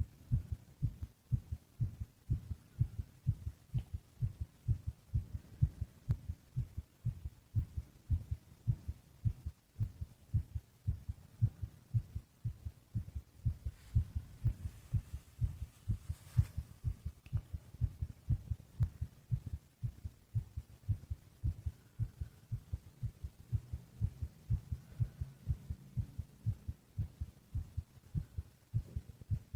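Human heartbeat: a steady, even rhythm of low thumps.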